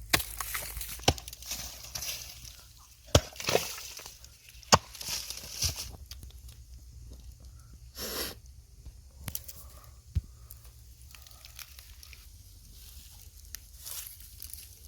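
Hands digging and pulling at earth and mud: irregular scraping, tearing and crunching with a few sharp knocks, over a steady low hum.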